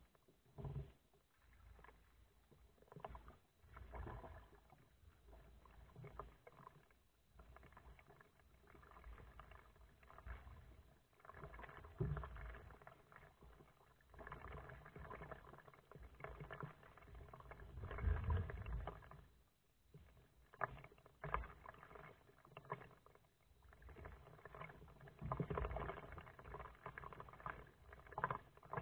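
Kayak paddling: the paddle blades dip and pull through the water in faint, uneven strokes roughly every two seconds, with splashes, drips and a few sharp knocks.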